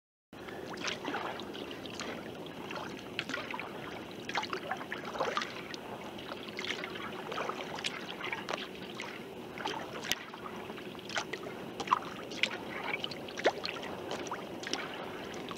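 Water splashing and dripping around a sea kayak on open lake water: frequent small, irregular splashes and drips over a steady wash, with a faint steady hum underneath.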